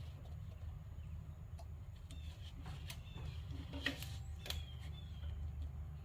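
A few faint metallic clicks from pliers working at a small external snap ring on a tractor's shift lever, the sharpest about four seconds in. A steady low hum runs underneath, and a few faint bird chirps come through.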